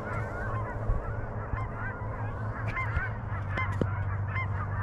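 A flock of geese honking, many calls overlapping, over a steady low hum.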